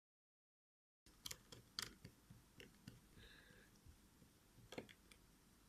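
After a second of dead silence, a few faint, sharp clicks and taps of small parts and tools on a smartphone being reassembled.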